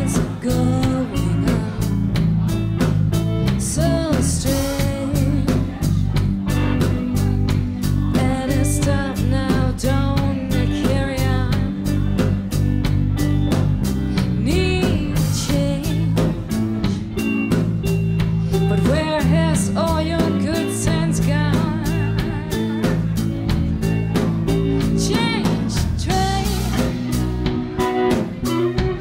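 Live band playing: a woman sings over hollow-body electric guitar, electric bass and drum kit keeping a steady beat.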